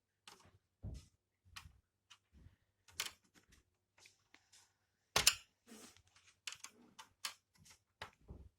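Irregular clicks and knocks of tools and parts being handled during electronics repair work, the loudest about five seconds in.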